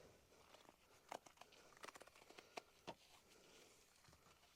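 Faint, scattered ticks and scratches of a boar's hair detail brush working around a motorcycle wheel rim, over near silence.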